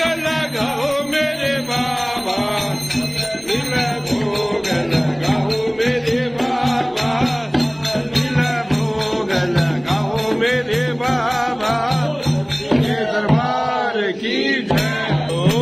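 Hindu devotional kirtan: voices chanting to music over a steady low drone, with bells jingling.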